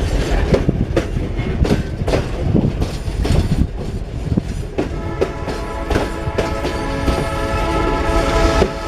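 Loaded freight train rolling past, its wagon wheels clacking over the rail joints in quick irregular knocks over a steady rumble. A steady whining tone of several pitches grows stronger about halfway through.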